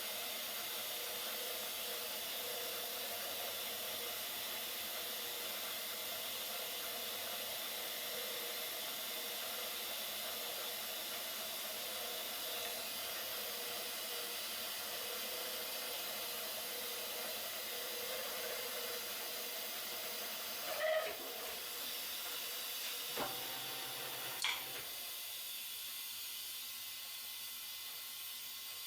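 Steady hiss of compressed air blowing chips off a workpiece on a milling machine, with a few short clicks and knocks about twenty seconds in.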